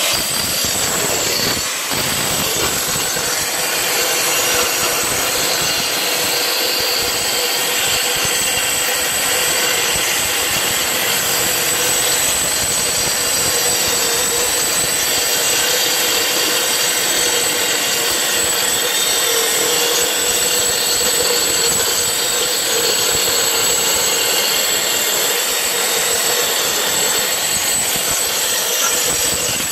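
DSHitech R7 Edge electric edge grinder running steadily, its grinding head abrading epoxy coating off the concrete floor along a wall edge: a constant loud grinding noise with a faint steady whine.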